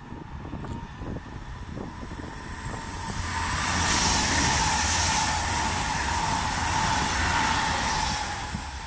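Deutsche Bahn ICE T electric tilting multiple unit passing at speed. Its rushing sound builds from about three seconds in, peaks as the front passes, and fades toward the end.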